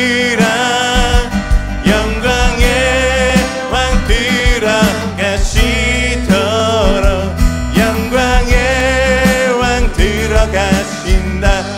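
Worship band playing a Korean praise song: singing voices over acoustic guitar and band accompaniment with a steady beat.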